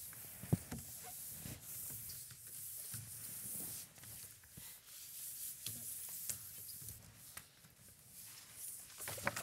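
Quiet room with soft, scattered taps and rubs of cards being handled on a wooden table, over a faint hiss.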